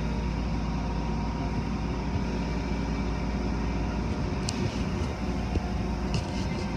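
Automatic car wash running, heard from inside the car: a steady mix of water spray on the body and wash-machinery noise. A few short sharp clicks come about four and a half and six seconds in.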